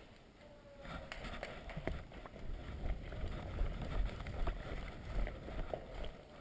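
Footsteps of a person moving quickly over rough ground, uneven and thudding, with the rustle of clothing and gear, picking up about a second in.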